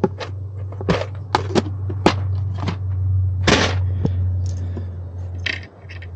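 Hand tools working on network cable ends: a string of sharp clicks and snaps as the ends are prepared and connectors crimped, with a longer scrape about three and a half seconds in, over a steady low hum.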